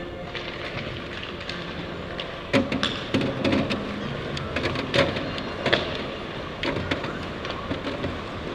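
Hard rubber hockey pucks clacking against one another as they are scooped up by hand off the ice, a string of irregular sharp knocks starting about two and a half seconds in, over the steady hum of the rink.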